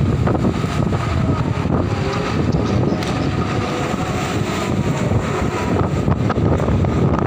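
Heavy diesel machinery running steadily, with strong wind buffeting the microphone.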